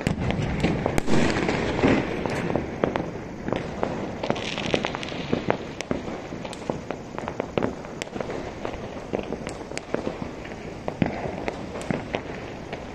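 Many fireworks and firecrackers going off across a city: a dense, irregular string of distant bangs and cracks, several a second, with the loudest ones about one to two seconds in.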